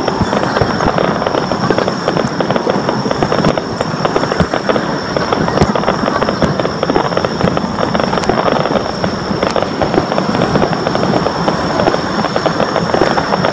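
Fireworks display: dense, unbroken crackling and popping from many overlapping bursts, with no single big bang standing out. A steady high-pitched whine runs underneath.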